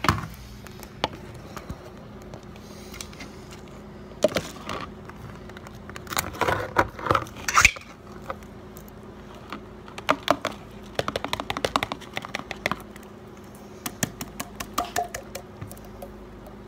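Dog food being handled and poured into a plastic bowl: scattered clicks and rattles of the container, with a fast run of small clicks about ten seconds in. A faint steady low hum runs underneath.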